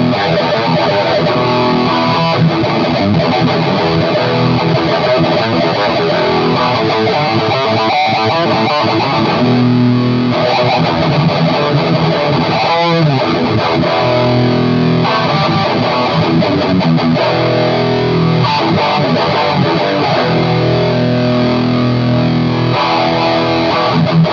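Electric guitar played with a distorted preamp tone from an M-Vave Mini-Amp pedal, heard through a Cuvave Cube Baby's cabinet impulse response, with continuous riffs and chords.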